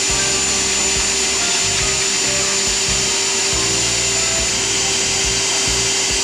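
A forced-air dog dryer blowing steadily through its hose over a wet dog's coat, a constant motor whine with a high hiss.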